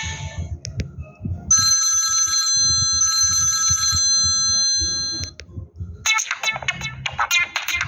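Samsung GT-C3053 mobile phone ringtones played through the phone's small speaker. About a second and a half in, a steady electronic telephone-ring tone sounds for about four seconds. About six seconds in, a different ringtone starts: a quick, rhythmic melody.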